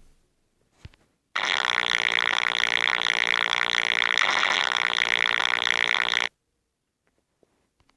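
A long burp sound effect played from a meme soundboard app: one low, buzzy belch held at a steady pitch for about five seconds, starting and cutting off abruptly.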